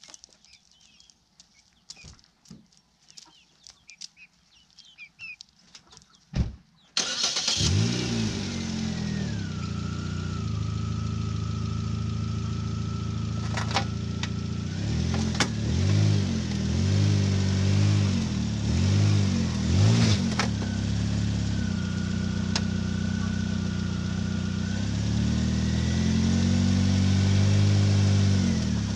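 A thump, then a Nissan Sentra's four-cylinder engine starts about seven seconds in and runs, revving in several short surges and a longer rise near the end as the car is driven up onto ramps.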